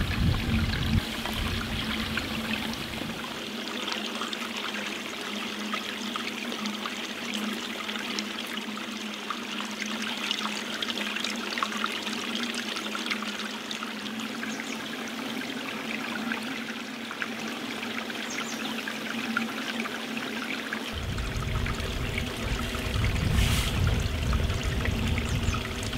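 Steady running water, a stream trickling and splashing, with a low rumble under it that drops out about three seconds in and comes back about twenty-one seconds in.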